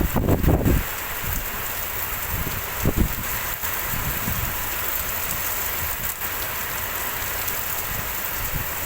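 Steady heavy rain hissing down, with wind gusts buffeting the microphone in the first second and again about three seconds in.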